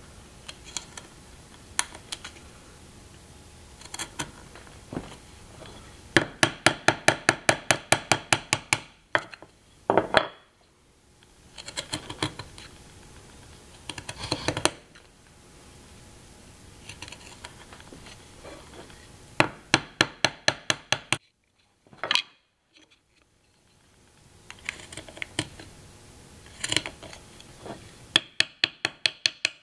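Mallet tapping a chisel in quick runs of sharp knocks, about five a second, chopping out the waste between hand-cut dovetail pins in an avodire board, with single clicks and the quieter scrape of paring between the runs.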